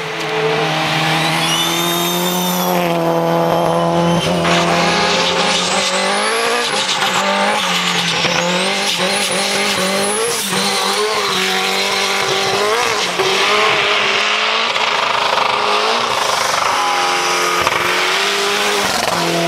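Race cars climbing a dirt hillclimb road one after another, engines revving hard and changing pitch again and again as they shift gears.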